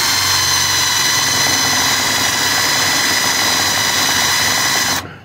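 Cordless drill running steadily at full speed as it bores a counterbore for a wood plug into a wooden board, a steady whine that stops about five seconds in.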